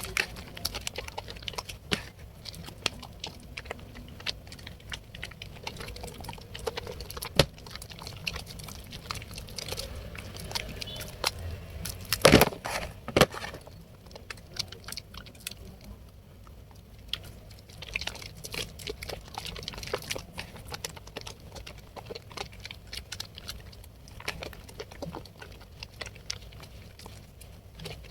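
A wet bar of soap lathered by hands, a steady run of small wet squishes and crackling foam, with a couple of louder squelches around the middle.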